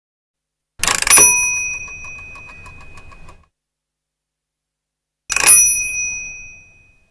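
Mechanical auto rickshaw fare meter: the flag lever is thrown with a clunk and the meter's bell rings, followed by a couple of seconds of quick, even ticking from the mechanism. About four seconds later the lever is thrown again and the bell rings once more, fading out.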